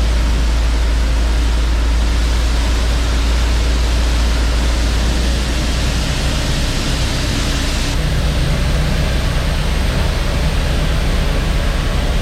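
Steady rushing noise over a low engine rumble: grain pouring from a grain truck's raised bed into an elevator dump pit, with the truck's engine running the hoist pump. The low rumble eases about six seconds in.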